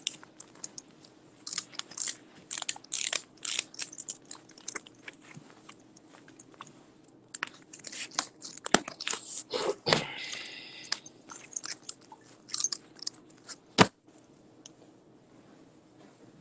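Irregular crunching and clicking close to the microphone, ending with one sharp click near the end.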